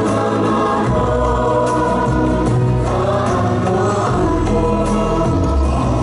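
Music with a choir of voices singing sustained chords.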